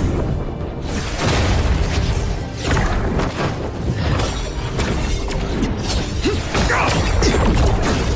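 Music under animated fight-scene sound effects: repeated booms and crashes of magical energy blasts clashing, ending in an explosion.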